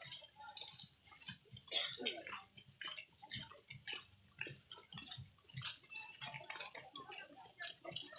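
Footsteps of a crowd walking on a paved path: irregular shoe scuffs and taps, several a second, with faint chatter among them.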